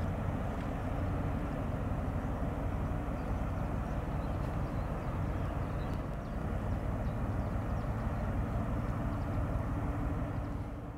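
Steady low rumble with a hiss of water as the ships' wake washes up over the sandy riverbank.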